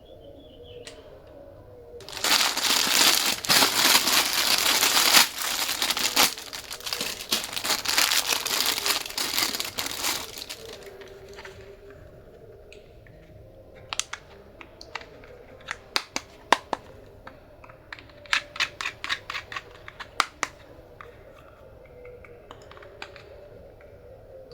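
Crinkling and tearing, like wrapping being crumpled, for several seconds, then a run of sharp separate clicks and taps.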